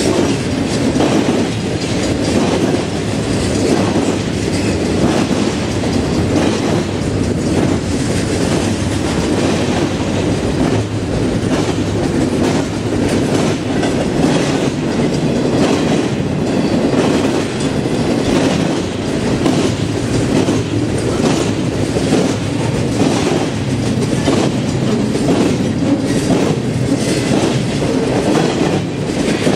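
Double-stack container freight train rolling past, loud and steady, its wheels clicking over the rail joints.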